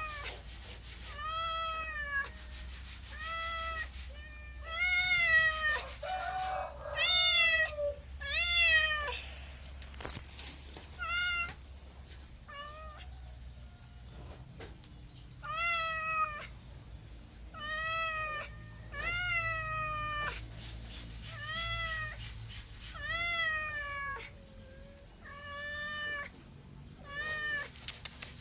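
A domestic cat meowing over and over, one arched meow every second or two, with a few shorter, fainter meows in a quieter stretch midway.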